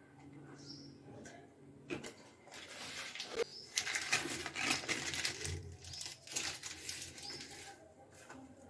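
A paper butter wrapper rustling and crinkling as it is handled, with one sharp click about two seconds in. A bird chirps briefly a few times in the background.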